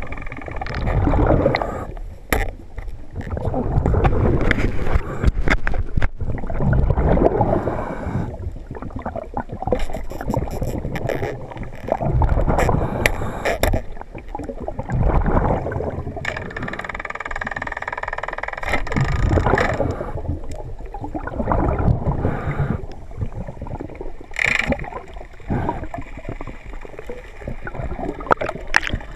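Water sloshing and gurgling in repeated surges, every two or three seconds, with a few sharp knocks.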